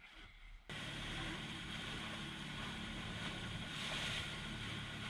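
A boat's outboard motor runs with a steady low hum under wind and water noise. The sound cuts in abruptly just under a second in, after near quiet.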